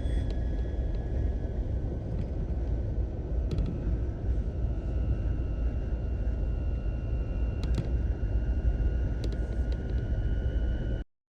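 A Jeep Wrangler JK driving, with heavy wind and road rumble and a steady high whistle from wind across the light bar's fins. The whistle holds two thin pitches, the upper one joining about four seconds in. The sound cuts off suddenly just before the end.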